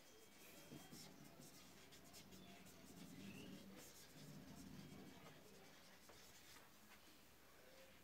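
Faint scratching of handwriting, a pen moving in short strokes over a writing surface.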